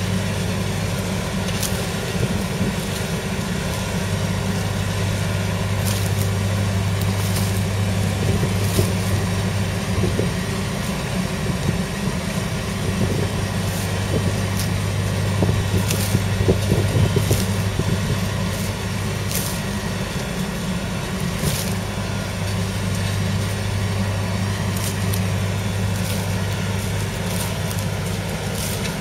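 Kubota M7171 tractor's 6.1-litre four-cylinder diesel engine running steadily under load while pulling a reversible plough through the soil, with scattered short clicks.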